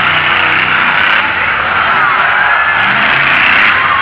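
Monster truck engines running loud across a dirt arena, their pitch shifting as the trucks throttle up and down, over a steady wash of noise.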